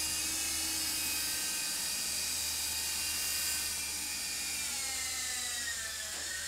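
Scale-model Lift-Jet VTOL flier hovering on its rotor: a steady high motor-and-propeller whine. Over the last two seconds the pitch falls as the model throttles down and settles toward the floor.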